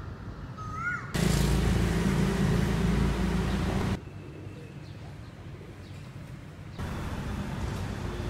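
A short rising bird whistle, then from about a second in, loud street traffic noise with a low engine rumble for about three seconds that cuts off suddenly, followed by quieter ambient noise.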